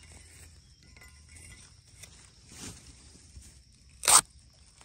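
A metal digging blade chops once into the soil at the base of a wild bamboo shoot about four seconds in: a single sharp, loud strike. Before it there is only faint rustling.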